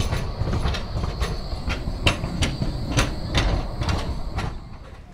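Battery-powered tram passing close by, its wheels rumbling on the rails with a regular run of sharp clicks. The sound drops away suddenly about four and a half seconds in as the tram clears.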